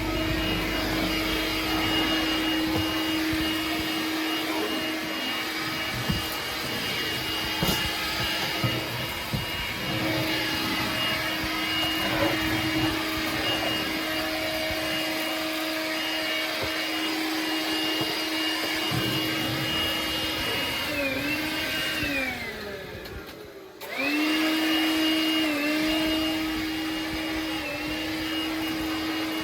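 A small electric motor running with a steady whine over a rushing noise. It winds down in pitch about 21 seconds in, stops briefly, then starts up again and settles back to a steady run.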